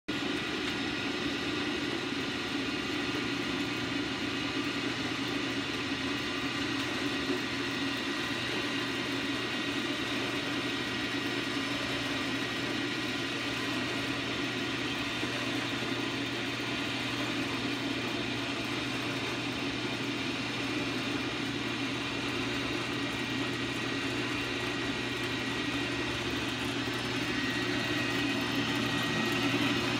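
Ramco horizontal metal-cutting band saw running with nothing in the vise: a steady motor hum that grows slightly louder near the end.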